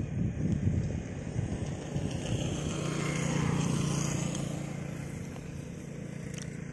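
Motorcycle engine running on the move, with wind buffeting the microphone in the first second. A steady engine drone swells about three seconds in and then fades again.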